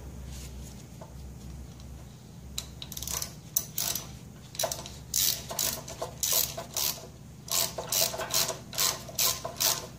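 Ratchet wrench with a spark plug socket clicking as a spark plug is screwed back into a small engine: a few scattered clicks from about two and a half seconds in, then a regular run of about three clicks a second.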